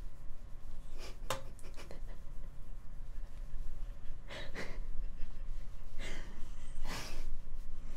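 Soft, breathy laughter: a few short puffs of breath, the last and longest near the end.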